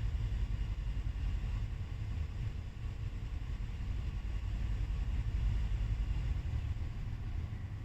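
Volvo 2.5T turbocharged five-cylinder engine idling steadily, not yet fully warm, with a new crankcase ventilation valve diaphragm fitted.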